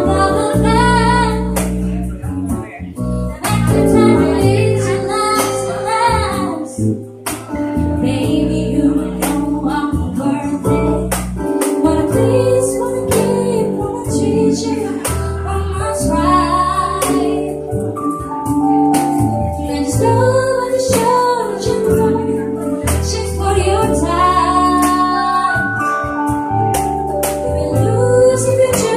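A woman singing a slow R&B ballad into a microphone, backed live by acoustic guitar, electric bass and keyboard.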